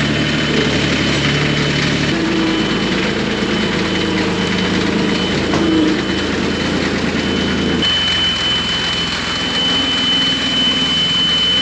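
Tractor engine running steadily, its note shifting about two seconds in and again near eight seconds, with a steady high-pitched whine that grows louder in the last few seconds.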